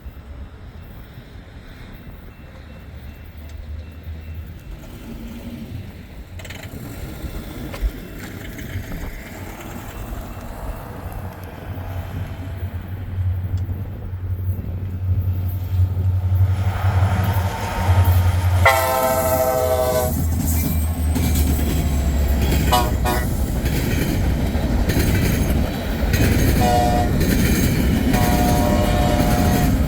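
A pair of EMD SD70MAC diesel locomotives approaching and passing, their engines rumbling louder as they near. The K5LA air horn sounds a long blast of about two seconds, then several shorter blasts. Wheel and rail noise builds as the train goes by.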